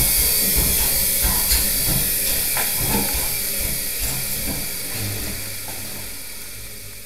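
A steady hiss, strongest in the high range, fading out slowly over several seconds, with a few faint clicks.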